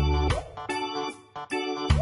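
Background music played on keyboards, with a steady beat and held bass notes that change about once a second.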